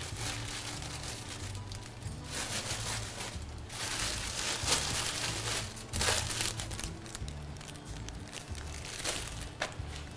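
Crinkling and rustling in irregular bursts as thin shrak flatbread is handled.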